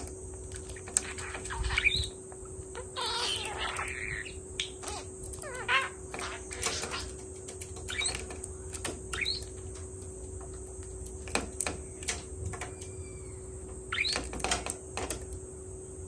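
Budgerigar chattering in short chirps and warbles, with sharp clicks in between.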